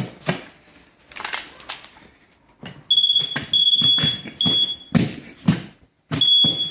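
Moisture meter's high-pitched electronic tone sounding in stretches, with short breaks, as it is held to the wall, signalling wet drywall. It starts about three seconds in, stops briefly about five seconds in, and comes back near the end, amid knocks and handling clicks.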